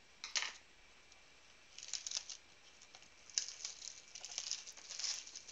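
Plastic shrink-wrap being torn and crinkled off a cardboard trading-card blaster box: a few short crackles, then a busier run of tearing and crinkling in the second half.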